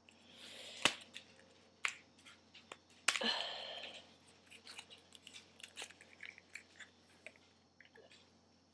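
Small handling noises of a lipstick and its packaging being taken out and opened: a few sharp clicks about one, two and three seconds in, short bursts of crinkly rustling, and softer ticks that die away near the end.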